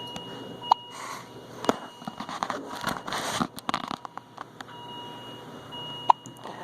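A baby hiccuping: short sharp hics about a second in, again shortly after, and once more near the end, with rustling and crackling handling noise in between.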